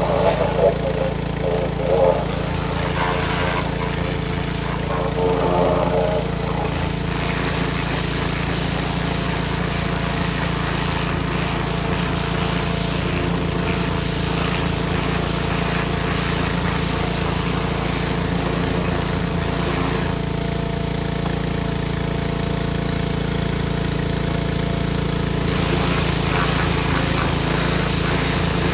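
A motor-driven machine running steadily with a rapid low pulsing, with a few irregular louder bursts of work noise in the first several seconds.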